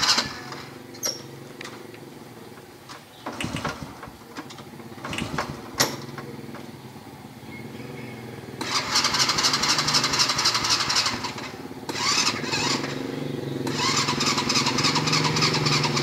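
Honda Supra motorcycle's electric starter cranking in three long tries, the engine not catching: the battery is weak.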